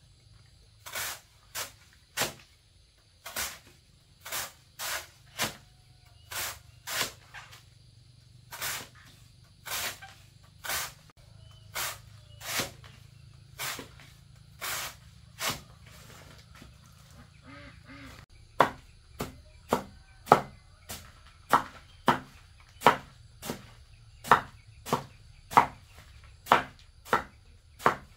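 Chopping with a blade, one sharp stroke every half second to a second. The strokes pause briefly past the middle, then come back quicker and louder with a slight ring to each stroke.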